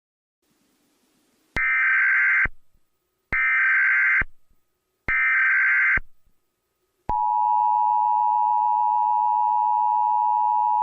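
Emergency Alert System SAME header: three short bursts of digital data tones, each about a second long and a second apart. About seven seconds in, the steady, loud two-tone EAS attention signal begins, marking the start of an emergency alert broadcast.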